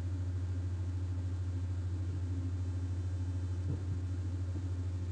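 A steady, low, distorted buzzing drone with a fast pulsing texture, played through an iPhone's small speaker by an audio-processing app under test.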